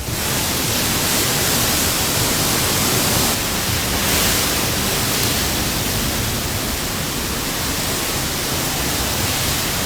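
Hurricane-force wind blowing hard, a loud steady rush of noise that swells a little a few seconds in.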